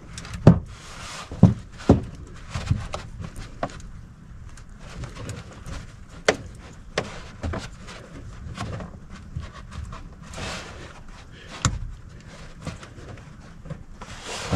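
Irregular sharp plastic clicks and knocks, several in the first three seconds and a few more later, from hands working the retaining clips of a 2015 Jeep Cherokee's headlight bulb assembly in a cramped engine bay.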